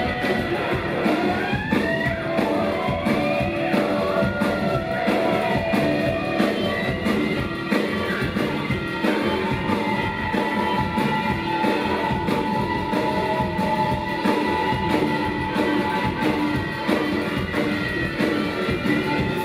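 Rock band playing live: a steady drum beat under guitar and long held tones, with a few sliding pitches in the first few seconds.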